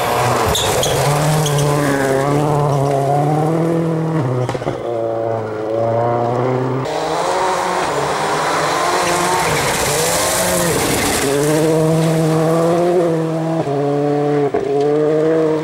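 Rally car engine revving hard, its pitch climbing and then dropping sharply at each gear change, several times over, with one lift off the throttle and back on partway through.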